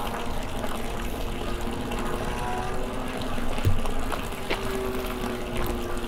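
A motor running steadily with a low hum, over an even rushing noise.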